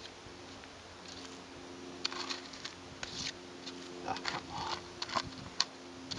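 Minelab GPX gold detector giving a steady low hum through its speaker, which drops out briefly and comes back. Over it come scratches and small clicks of gravelly soil and stones being scraped and handled next to the coil while the dirt is checked for the nugget.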